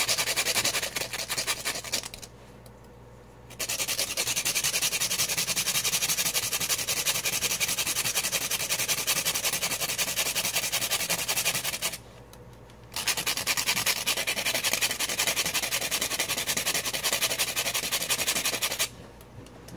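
Saigon cinnamon being grated on a small metal hand grater: fast, steady rasping strokes that pause briefly twice and stop near the end.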